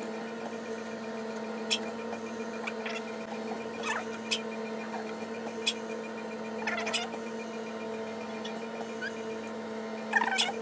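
Steady electrical hum, with a few brief high clicks and chirps over it.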